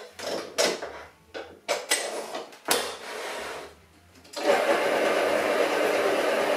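A stand mixer's head is lowered and set onto its bowl with a few clicks and knocks, then about four seconds in its motor starts and runs at a steady speed, creaming butter.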